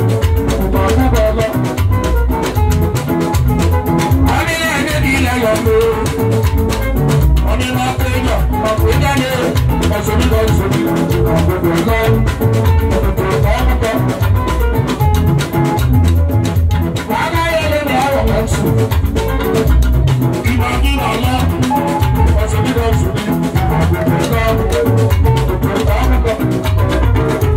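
Live band playing with a steady beat: electric guitar, keyboard and drum kit, with a man singing into a microphone over it in places.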